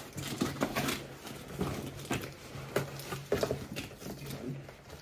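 Packing tape being picked at and torn off a cardboard shipping box by hand, in irregular crackles and short rips.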